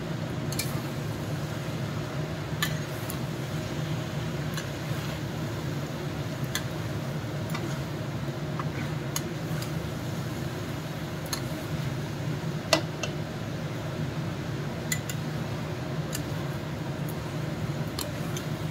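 Steel spatula scraping and knocking against a non-stick kadai as chopped vegetables are stirred: irregular sharp clicks, the loudest about two-thirds of the way through, over a steady low hum.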